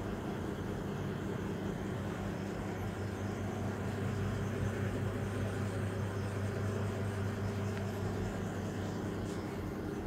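Teknix T330RDB retro fridge's compressor running with a steady low electric hum.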